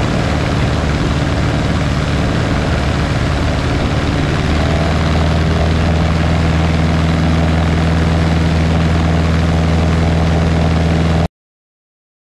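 Light aircraft's piston engine and propeller running steadily in flight, a low drone over a wash of wind noise that settles to an even pitch about four seconds in, then cuts off suddenly near the end.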